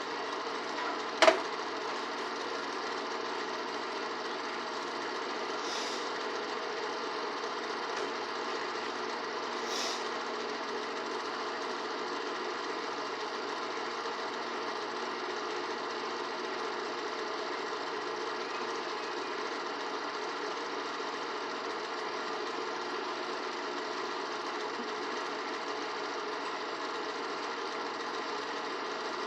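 A single sharp click about a second in, then a microwave oven running with a steady, even hum while it heats a bowl of couscous.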